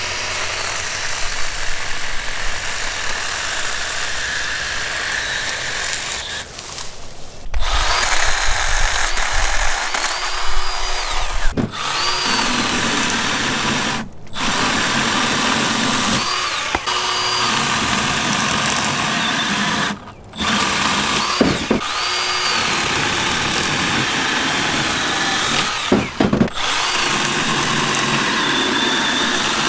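Milwaukee M12 Fuel Hatchet, a 6-inch battery-powered pruning chainsaw, running and cutting through wood. It stops briefly about five times, and after several of the stops the motor comes back with a rising whine as it spins up again.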